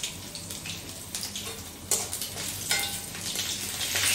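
Garlic and dried red chillies sizzling in hot oil in a steel kadai, the tempering (chhunka) for a curry. A spatula knocks against the pan a couple of times a little past the middle.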